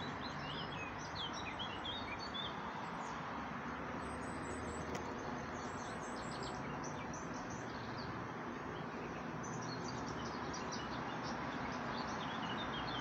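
Small birds chirping in short calls over a steady background hiss of outdoor noise. The chirps cluster in the first couple of seconds and again over the last few seconds.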